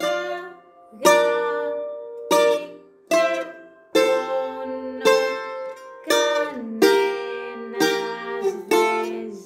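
Greek bouzouki playing a slow melody with a pick: single ringing notes about once a second, some struck in quick groups of down and up strokes, with one note sliding down in pitch a little past halfway.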